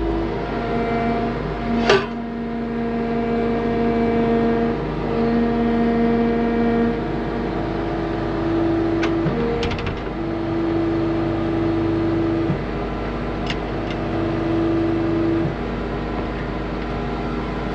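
Cat skid steer's engine running steadily, with a whining tone that comes and goes in stretches of a few seconds. A few sharp metallic clicks or knocks, the loudest about two seconds in, others near nine and thirteen seconds.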